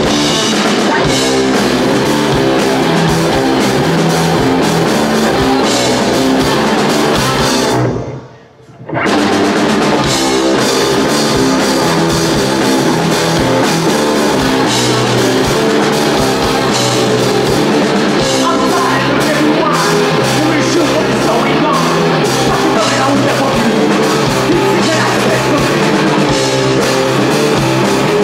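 Live rock band playing: distorted electric guitar, bass guitar and drum kit together. About eight seconds in, the band stops dead for roughly a second, then comes back in at full volume.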